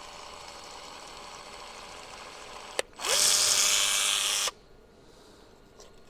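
A steady mechanical hum, then a click and a small power tool's motor whirring for about a second and a half, rising in pitch as it spins up and cutting off suddenly.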